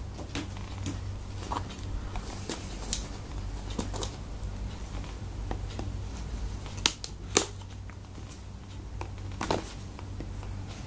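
Scissors snipping through the seal stickers on a cardboard phone box, with small clicks from handling the box. The sharpest two snips come close together about seven seconds in, over a low steady hum.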